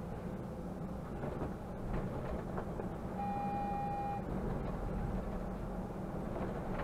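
Mercedes-Benz Conecto city bus driving, heard from the driver's cab: steady engine hum and road rumble. A single electronic beep about a second long sounds halfway through.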